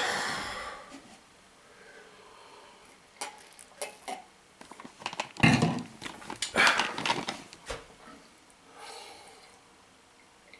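Scattered rustling and knocking noises, with the loudest cluster around the middle.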